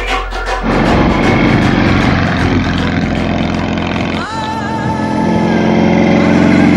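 Percussive music gives way after about half a second to a sidecar motorcycle's engine running steadily under way. About four seconds in the sound changes abruptly, with a wavering higher whine added over the engine.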